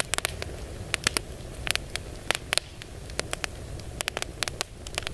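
Wood campfire crackling, with irregular sharp pops several times a second over a low steady rumble.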